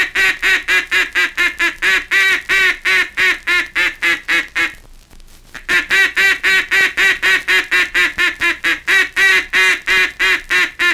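A mallard duck call blown in fast runs of full-voiced hen quacks, about five a second. The call is given twice, with a short break about five seconds in. This is the 'come on in' or 'come on back' call, used on ducks about 200 yards out that are heading for the decoys or have just passed over. It is heard from an old 78 rpm record transfer.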